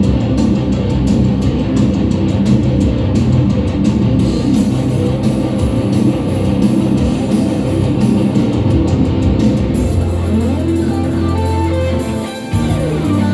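A live rock band playing loudly, with distorted electric guitar over bass and drums. About ten seconds in, the dense playing gives way to a held low bass note and sliding guitar lines.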